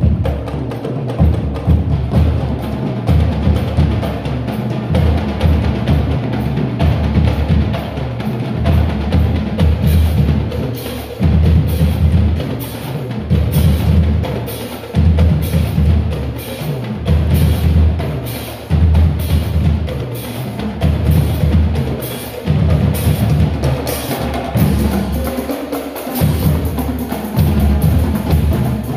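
High school marching drumline playing a cadence: bass drums beating a steady low rhythm with snare drums and sharp stick clicks over it and cymbals joining in.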